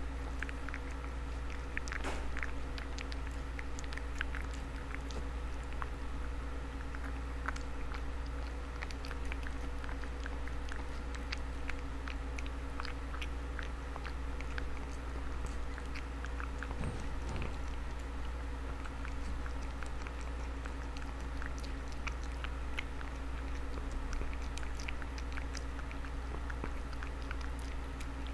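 A cat chewing and lapping wet food from a paper bowl, close-miked: a continuous run of small wet clicks and smacks. A steady low hum runs underneath.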